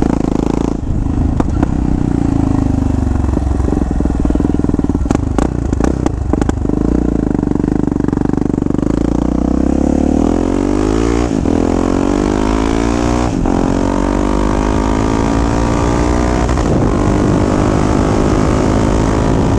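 Yamaha XT 660's single-cylinder four-stroke engine running through an aftermarket stainless steel exhaust with twin tips, heard from the rider's seat on the move. About nine seconds in the engine note climbs as the bike accelerates, with two quick upshifts about eleven and thirteen seconds in, then holds steady at cruising speed.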